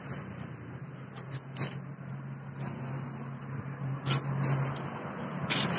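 Light clicks and taps of a steel tape measure being laid along a square iron bar, with a sharper cluster of clicks near the end, over a steady low mechanical hum.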